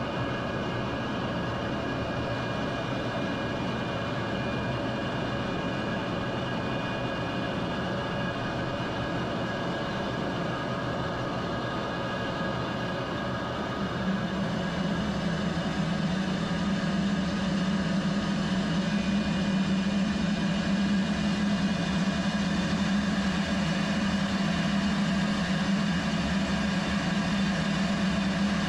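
Steady jet engine and airflow noise heard inside an F-35's cockpit in flight. A low hum grows louder about halfway through, then holds steady.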